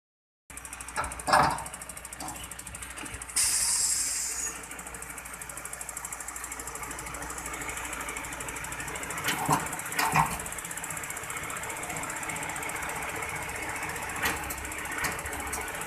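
Hooklift truck's hydraulic arm working a steel roll-off container along the truck and trailer bed, the truck's engine running steadily under the hydraulic load. Metal clanks sound about a second in, twice around nine to ten seconds and once near fourteen seconds, with a short hiss at about three and a half seconds.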